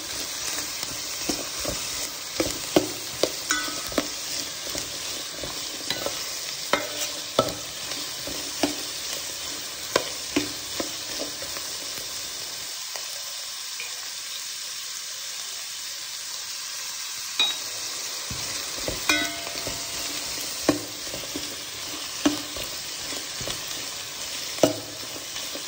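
Chopped onion, carrot and beans sizzling in hot ghee in a pan, stirred with a utensil that clicks and scrapes against the pan every second or so. For a few seconds in the middle the stirring stops while the steady sizzle continues, then the stirring starts again.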